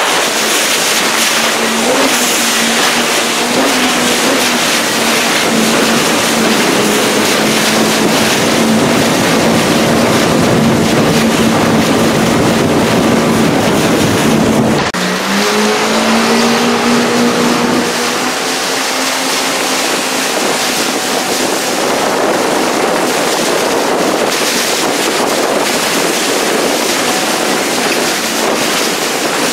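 Jet ski engine running at speed, with heavy wind and water noise over it. About halfway through, the engine note breaks off abruptly and then comes back rising in pitch.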